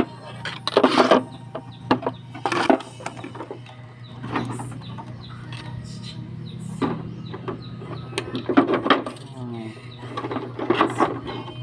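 Large thin plastic water bottle being handled, knocked down and turned, with crackles of the plastic and the scrape of a thin wire threaded through it. A handful of sharp knocks stand out, the loudest about a second in and at two and a half seconds, over a steady low hum.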